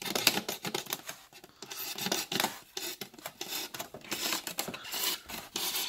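Utility knife blade drawn along a styrofoam cooler lid, scoring a shallow groove: an uneven run of short scratchy, squeaky scraping strokes.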